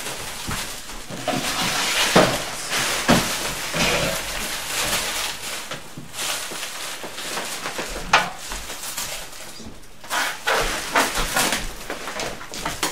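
Plastic packing wrap rustling and crinkling as it is handled, with a few sharp knocks from handling.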